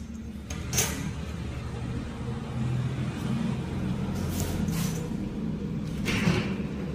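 A pen scratching along a steel ruler on paper and the ruler sliding into place: three brief swishes, about a second in, near the middle and near the end, over a steady low hum.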